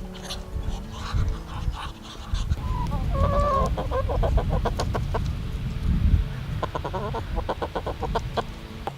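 Chickens clucking, with two rapid runs of short, stuttering calls, one about three seconds in and another about seven seconds in.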